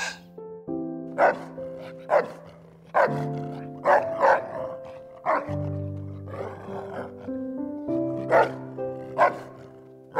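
A dog barking: short single barks about once a second, pausing for a couple of seconds in the middle, over background music with sustained notes.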